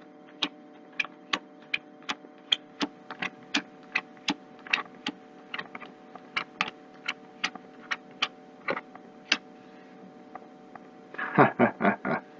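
Playing cards being dealt one at a time from a deck onto a wooden tabletop, each card a short, sharp snap, about two or three a second. The snaps stop after about nine seconds.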